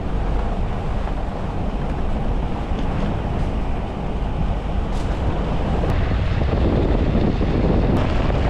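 Nissan Patrol 4WD on the move: steady engine and road noise, with wind buffeting the microphone.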